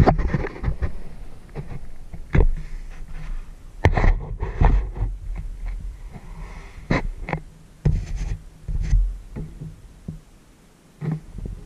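Close handling noise from a small camera being adjusted by hand: fingers rubbing and knocking on the camera body, heard as irregular knocks and scrapes.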